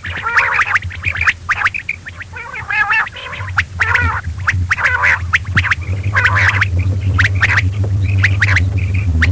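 Quail calling over and over in short, quick pitched notes and chatter. A low steady hum joins beneath the calls about a third of the way in.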